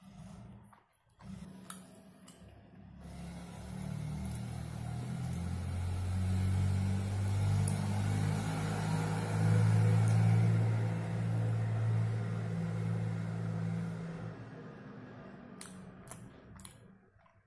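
A motor vehicle's engine passing by, a low steady hum that swells to its loudest about ten seconds in and fades away over several seconds.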